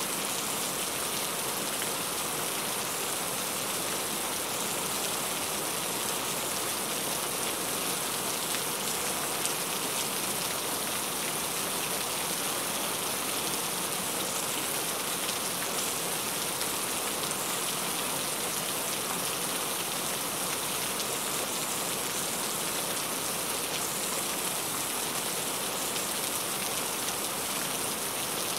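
Heavy rain falling steadily, a constant even hiss with no breaks or changes.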